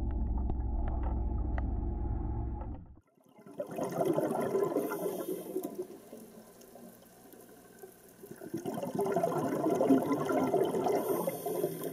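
Low, sustained soundtrack music that cuts off about three seconds in. Then rushing water sound for the underwater end screen, swelling up twice.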